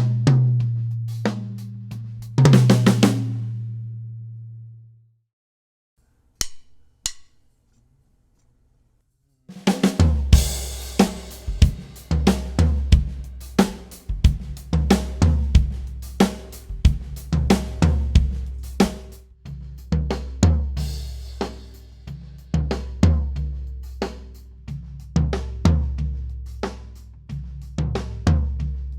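Acoustic drum kit in a studio, close-miked on the toms. A few hits with a tom ringing out die away into silence a few seconds in, with two short clicks in the quiet. About ten seconds in the kit comes back in with a cymbal crash, then a steady beat of kick, snare, hi-hat and low ringing toms.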